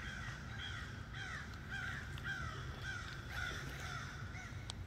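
Crows cawing in a quick, steady run of short calls, about two or three a second, over a low steady rumble.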